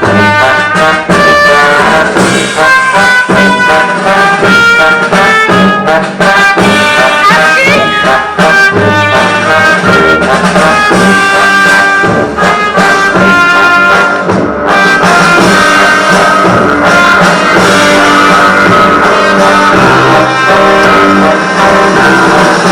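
Brass-led band music, trombone and trumpet to the fore, playing a busy jazz tune with a steady bass line.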